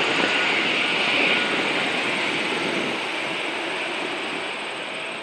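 Jet airliner's engines heard passing, a steady rushing noise that slowly fades as the aircraft moves away.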